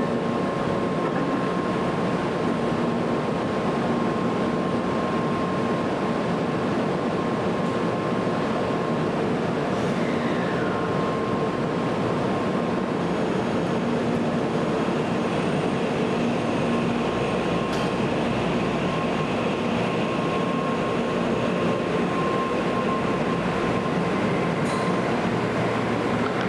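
Shinkansen train noise: a loud, steady rushing sound with faint steady whining tones, holding an even level throughout rather than rising and falling as in a single pass-by. About ten seconds in, a brief falling whine is heard.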